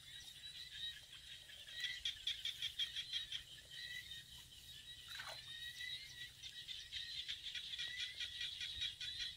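A steady chorus of small calling animals in the rice field: a fast, high-pitched pulsing that carries on without a break. About five seconds in comes one brief call that falls in pitch.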